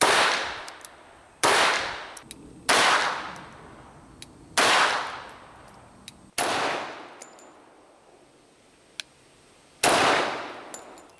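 Six pistol shots fired at an uneven pace, each a sharp crack trailing off in about a second of echo; the last comes after a longer pause.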